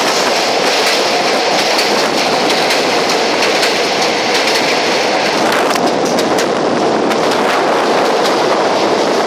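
Passenger express train running at speed over a river bridge, heard from aboard: a steady rumble and rush with the wheels clicking over rail joints, the clicks coming thickest a little past the middle.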